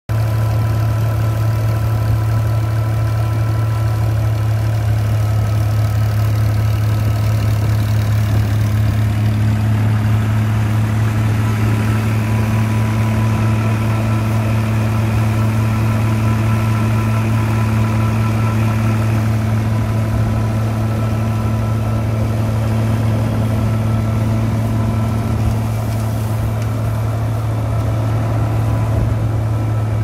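Tractor engine running steadily under load, driving a peanut thresher's drum as peanut plants are fed into it: a constant low hum with fainter steady higher whines over it.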